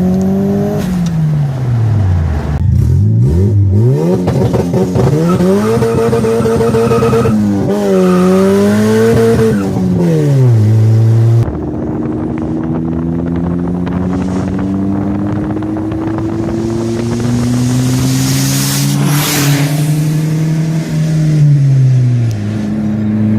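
Car engine revving up and down, its pitch swinging several times. After a sudden cut, it pulls steadily with the pitch slowly rising, then drops near the end.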